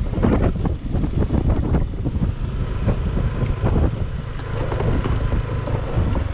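Wind buffeting the microphone in uneven gusts, a heavy low rumble.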